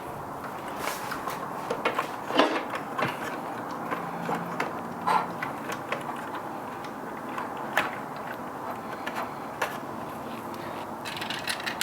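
Hands fitting the drive belt and motor inside a Baratza Forte coffee grinder's case: scattered light clicks and knocks of plastic and metal parts over a low handling rustle.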